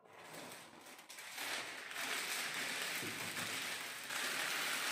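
Crinkly red plastic gift-box wrapping being pulled off and crumpled in the hands: a dense crackling rustle that builds up about a second in and keeps going.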